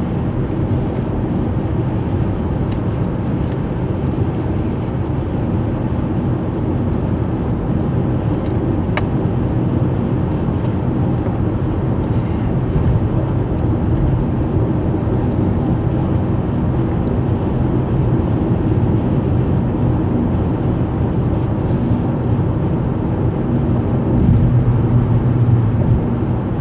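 Steady road and engine noise heard inside a car's cabin while it cruises at highway speed, a low even drone with a few faint clicks. It grows a little louder near the end.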